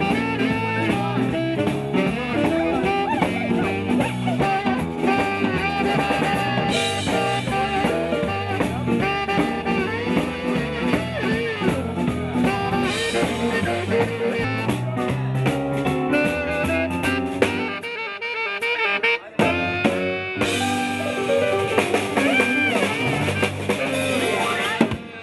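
Band music with drum kit, guitar and horns. About eighteen seconds in, the bass and drums drop out for a couple of seconds before the full band comes back in.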